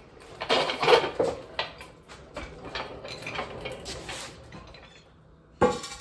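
An engine assembly on its cradle being pushed across a concrete garage floor: loose metal parts rattle and clank, loudest in the first second or so, with one sharp metallic knock near the end.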